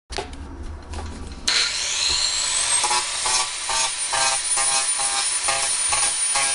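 A Makita power saw with a cutting disc starts about a second and a half in, its whine rising as the motor spins up. It then cuts into the rim of a water tank with a steady grinding that pulses about three times a second.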